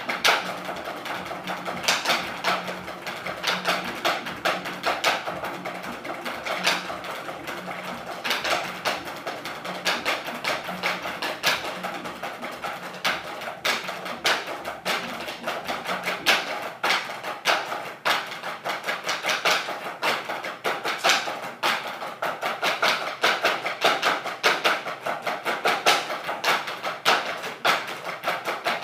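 A group of snare drummers playing drumsticks together on wooden practice boards: fast, dense rudiment strokes of a snare solo, with clusters of accented hits.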